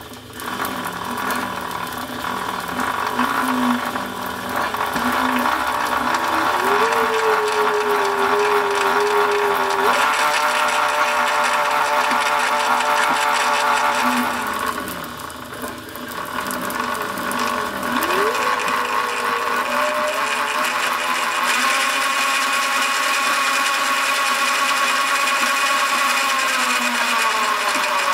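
Zero MX electric motorcycle's motor driving the chain and rear sprocket with the wheel off the ground, a whine together with chain whir. It speeds up and slows down several times: rising about 6 s in, dropping at about 10 s, dipping near the middle, climbing again, then winding down near the end.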